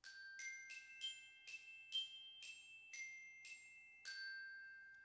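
A short glockenspiel-like jingle of about ten high, bell-like struck notes, roughly two a second, the last note ringing on and fading out.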